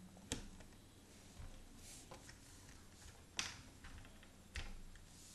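Near silence broken by three faint taps: a hand handling small plastic Littlest Pet Shop toy figures on a wooden tabletop.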